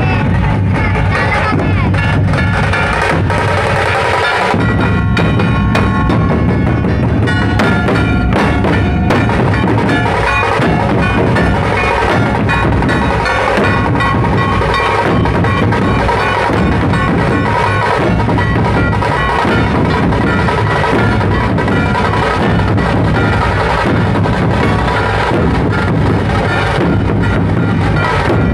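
A troupe of large dhol barrel drums beaten together in a loud, continuous, driving rhythm. The deep strokes drop out for a moment about four seconds in.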